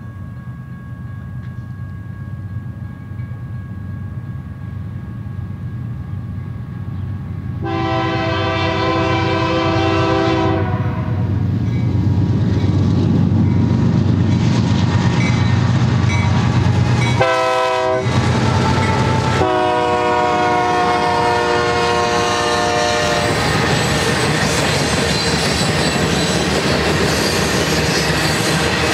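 A BNSF freight train's GE diesel locomotives approach and pass with a deep engine rumble that grows louder. The air horn sounds a long blast about 8 s in, a short one about 17 s in, and a long one about 20 s in. Freight cars then roll by with a steady clatter of wheels on rail.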